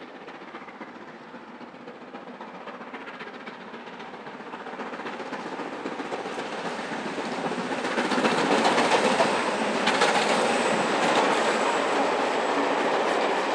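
LMS Black Five two-cylinder 4-6-0 steam locomotive and its train running through a station at speed: the sound grows steadily louder as it approaches, becomes loud about eight seconds in as the engine passes, then the coaches' wheels clatter past over the rail joints.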